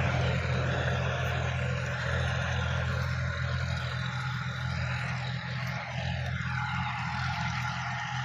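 Sonalika DI-50 RX tractor's diesel engine running steadily under load as it drives a rear rotary tiller. It moves away and gradually fades.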